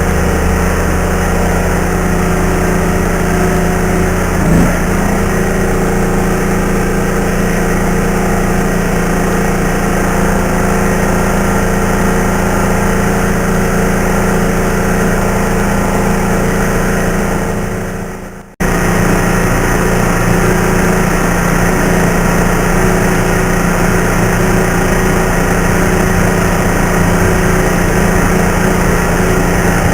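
A motor or engine running steadily at an even pitch. It fades away about two-thirds of the way through and cuts back in suddenly.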